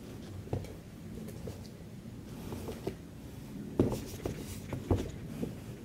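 Soft rustling and scattered light taps and knocks of guinea pigs moving about on fleece bedding close to the microphone, with a couple of sharper knocks after about four seconds.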